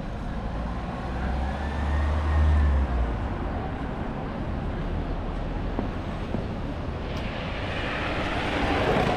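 Street traffic: vehicles passing, with a heavy low rumble for the first few seconds and a swelling rush of noise near the end.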